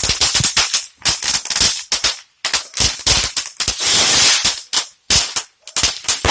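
Crackle-barrel novelty firework going off: a rapid, irregular stream of sharp crackling pops, with a brief thicker hissing burst about four seconds in.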